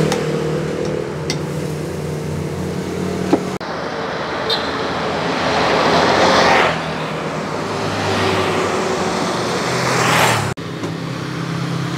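Road traffic: motorbikes and cars passing on a road, the noise swelling as one goes by about halfway through and again near the end. A steady low hum fills the first few seconds.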